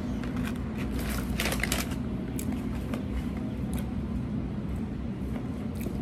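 A steady low rumble, with a few crackles and rustles from a cardboard fries carton and the fries in it being handled, clustered about one and a half seconds in.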